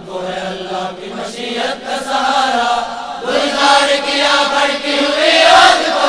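Chorus of boys and young men singing an Urdu tarana together, unaccompanied voices that get louder about three seconds in, with a note that rises and is held near the end.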